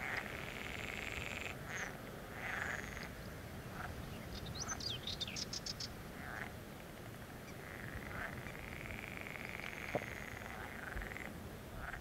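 Frogs croaking in a chorus, with long trilling stretches and single croaks. About halfway through, a small bird gives a brief high twittering song of quick notes.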